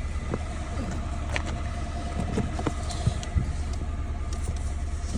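Peugeot 107's three-cylinder 1.0 petrol engine idling steadily with a new ignition coil fitted, running much better than with its failed coil pack. A few light clicks sound over it.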